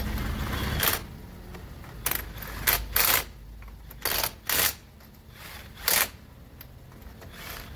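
Cordless impact wrench turning a car's scissor-jack screw: it runs for about a second, then comes several short bursts.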